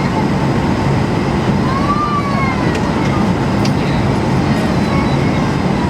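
Steady, loud airliner background noise, a dense rumble and hiss, with faint indistinct voices.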